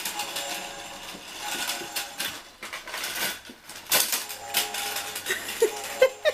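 Hard plastic toy-playset pieces (track, ramps and a toy crane) clattering and clicking irregularly as a baby grabs and pulls at them, with sharper knocks about four and six seconds in.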